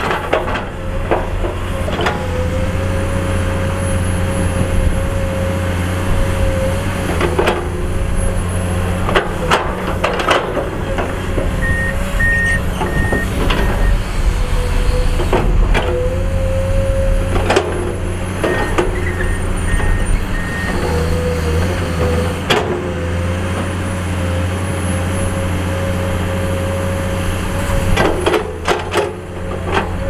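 Komatsu PC210 excavator's diesel engine running under load with a steady whine that rises and drops away several times, and scattered sharp knocks and clanks from the bucket working rock. Two short runs of warning beeps sound, about twelve and nineteen seconds in.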